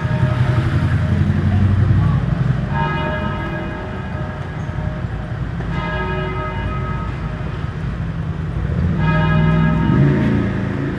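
A church bell tolling slowly, three strokes about three seconds apart, each ringing on and fading, over the steady rumble of city street traffic.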